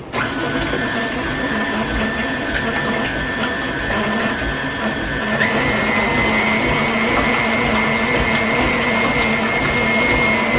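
Electric mixer switched on and running, beating cake batter; its motor whine steps up in pitch about five and a half seconds in.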